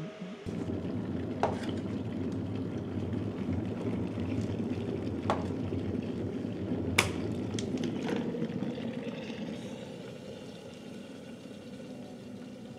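Electric kettle boiling water: a steady rushing, bubbling noise broken by a few sharp clicks, the loudest about seven seconds in. The boil dies down over the last few seconds.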